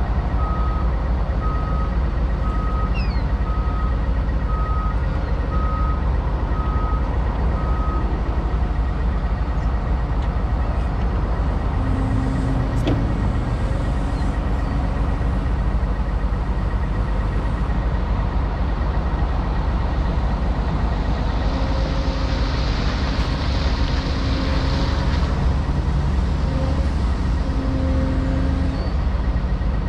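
Liebherr wheeled excavator's diesel engine running steadily as the machine creeps along a lowboy trailer deck, its travel alarm beeping about once a second for the first eight seconds or so. About two-thirds of the way through there is a few seconds of hiss.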